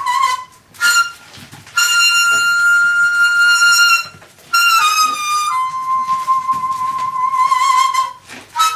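Daegeum, the Korean bamboo transverse flute, playing a slow solo melody of long held notes with wavering vibrato, separated by short breath pauses. One note glides down slightly about halfway through, and the longest note near the end settles lower.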